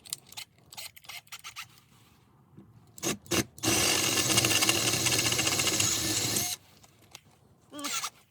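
Impact driver fitted with a drill bit, drilling a hole in the shelter's wall panel: a couple of short blips, then about three seconds of continuous rapid hammering that cuts off suddenly.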